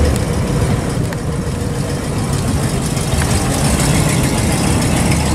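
Mid-1950s Buick sedan's V8 engine running steadily at low speed as the car rolls slowly past.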